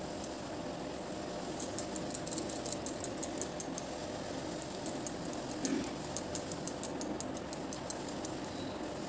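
Coarse dry-fruit laddu mixture crackling and rustling as it is squeezed and rolled by hand, with light scrapes against the steel plate: a run of quick, irregular small clicks over a steady background hum.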